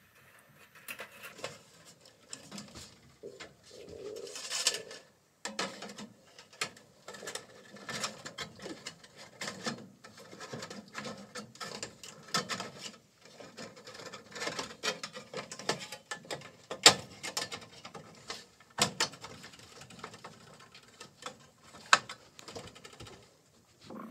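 Hands handling wiring and plastic parts inside an oven's control panel: irregular clicks, taps and rustling, with a few sharper clicks in the later part.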